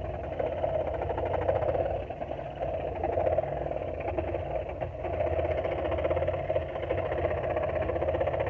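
Porter-Cable scroll saw running steadily, its blade stroking rapidly up and down as it cuts through a thin MDF board fed by hand.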